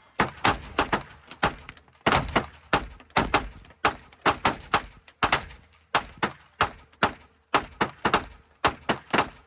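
Firearm shooting a long string of gunshots, about three a second at a steady pace, each a sharp crack with a short decay.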